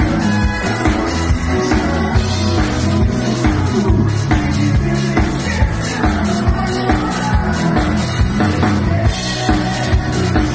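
A live dance band plays a song with a drum kit keeping a steady beat under horns and bass.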